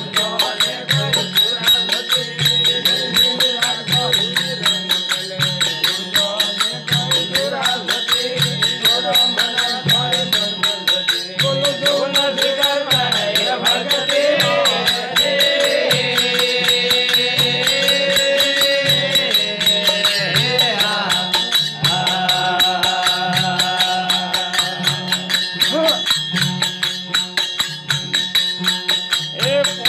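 Marwari desi bhajan folk music: fast, even jingling percussion over a steady drum beat, with a melody line that holds long notes in the middle.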